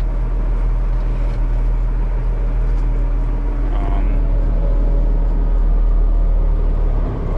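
Tractor diesel engine running steadily, heard from inside the cab as an even hum that holds one pitch.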